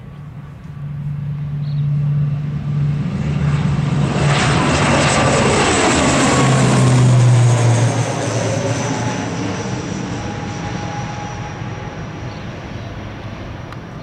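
ATR 72-600 turboprop airliner at takeoff power, its twin Pratt & Whitney PW127 engines and propellers running as it rolls down the runway and climbs past. The sound swells to its loudest about seven seconds in, its pitch drops as it passes, and it then fades as it climbs away.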